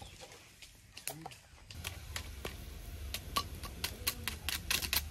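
Firewood crackling and popping in a small open fire under clay cooking pots: irregular sharp snaps that come thicker from about two seconds in, over a low steady rumble.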